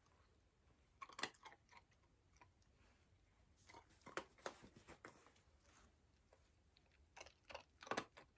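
Faint crunching and clicking of a puppy chewing treats, in three short bouts about a second in, around the middle, and near the end.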